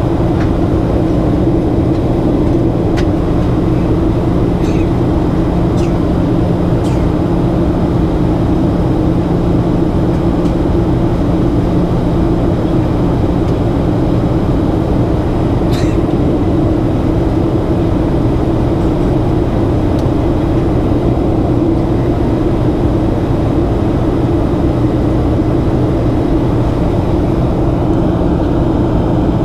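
Cabin noise inside a Boeing 737-800 on approach: the steady rush of airflow and the low drone of its CFM56-7B turbofan engines. A few faint clicks come through in the first seconds and again about halfway.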